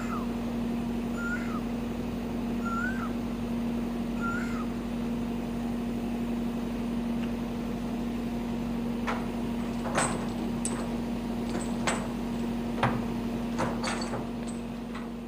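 Diesel engine of a Scania side-loader truck running with a steady hum. About a second and a half apart in the first five seconds, an animal gives four short rising-and-falling calls. From about nine seconds in come several sharp metallic clanks and clicks as the container's bottom corner is worked on by hand.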